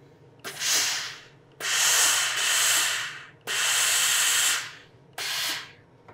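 Hose-fed steam iron giving four bursts of steam hiss, each starting sharply and fading over half a second to a second and a half, while it presses a fold into heavy bag canvas.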